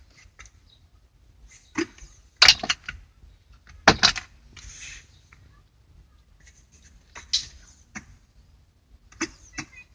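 A few separate sharp clicks and knocks, irregularly spaced, the loudest two about two and a half and four seconds in.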